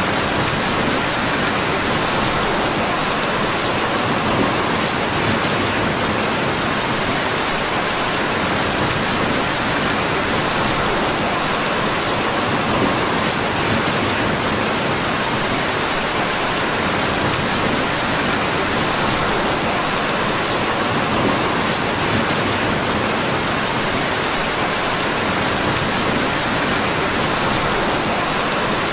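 Steady rain falling on a surface, an even hiss that does not change, with faint scattered ticks.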